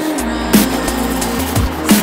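Background electronic music with a fast beat: deep kick drums and sharp snare hits over held bass and synth notes.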